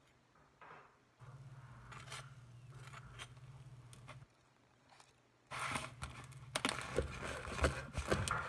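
Table knife spreading cream cheese on a slice of bread: soft scraping strokes over a low hum, with short silent gaps in the first half. The scraping turns louder and scratchier about two-thirds of the way in.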